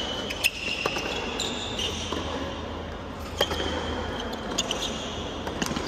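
Tennis rally on a hard court: sharp pops of racquet strikes and ball bounces every second or so, with tennis shoes squeaking on the court near the start and again about three and a half seconds in, over a low crowd murmur.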